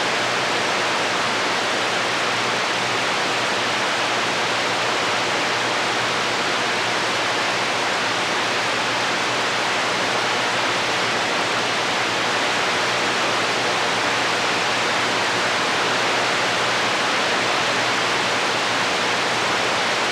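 CB radio receiver hissing steadily with its squelch open: plain static, with no station transmitting on the channel. A faint low hum runs under the hiss.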